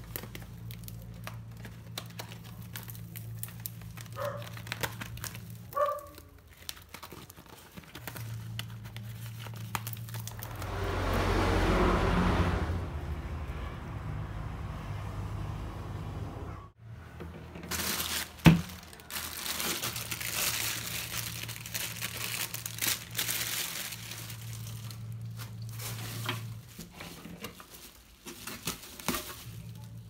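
Plastic mailer bags and packaging being handled while woven plant baskets are unpacked: crinkling and rustling with scattered small clicks, a louder stretch of rustling partway through, and one sharp knock. A low hum sits underneath.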